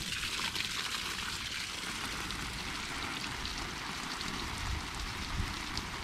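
Garden hose spraying a stream of water onto leafy vines and soil: a steady splashing hiss.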